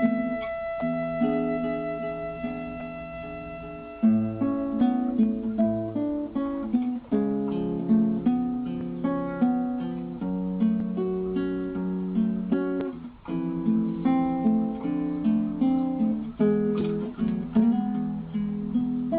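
Background music: acoustic guitar playing a plucked melody, starting about four seconds in after a held chord.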